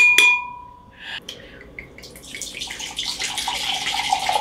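Tequila pouring from a glass bottle into a glass blender jar, a steady splashing trickle that starts about two seconds in. At the start, a ringing clink from the spoon scooping coconut milk from the can fades away.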